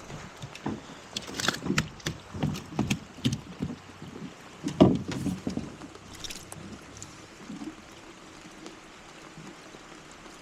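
Irregular knocks and clunks of gear and movement in a small fishing boat, the loudest thump just under five seconds in, then quieter.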